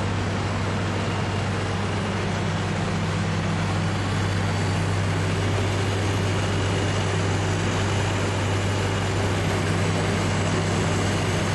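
Stadt dual-stage package air-conditioning unit running on its first compressor, a steady low hum under the rush of the condenser fan; the second-stage compressor has not yet cut in.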